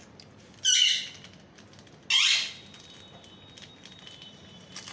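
Pet parrot squawking: two loud, shrill calls about a second and a half apart.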